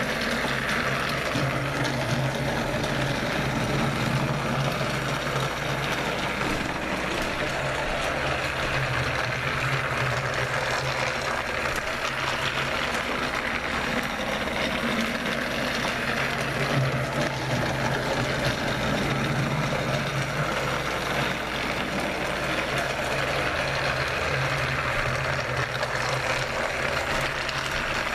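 Battery-powered Trackmaster Royal Spencer toy train running round a plastic track oval, its small electric motor whirring and wheels rattling steadily. A lower hum swells and fades every several seconds as the engine comes round each lap.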